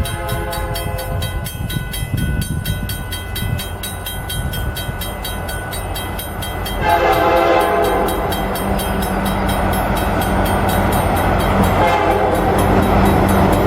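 Railroad crossing bells ringing steadily while an approaching freight train's locomotive horn sounds a chord. A faint blast comes first, then a long loud blast about halfway through and another near the end, with the rumble of the train growing louder.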